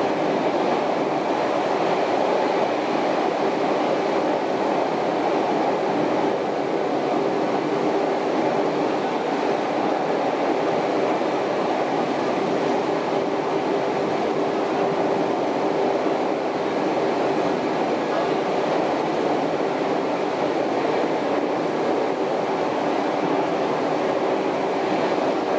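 Steady running noise inside a 413/455-series electric train car cruising through a tunnel: an even rushing roar from the wheels and running gear, with a steady traction-motor hum from the MT54 motors that fades in and out.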